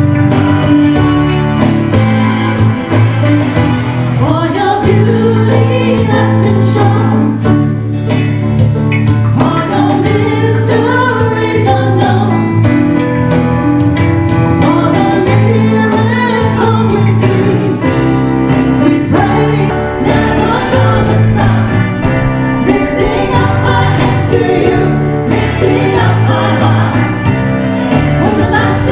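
Live gospel song played through a small PA: a keyboard intro for the first few seconds, then two women singing, backed by keyboard and acoustic guitar.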